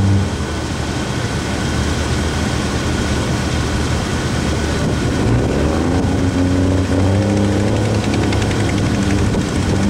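Diesel pickup truck engine running hard under load in a sled pull, on a new transmission, turbo setup and injectors. Its pitch shifts about five to seven seconds in.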